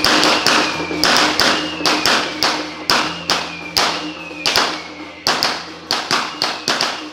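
A rapid series of sharp strikes or bangs, roughly two or three a second in uneven groups, with a faint tone sliding downward between them.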